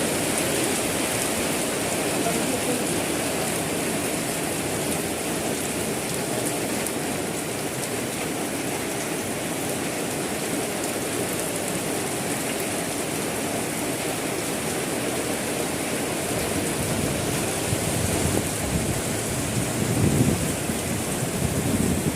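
Heavy rain falling steadily in a dense, even hiss. A low rumble swells near the end.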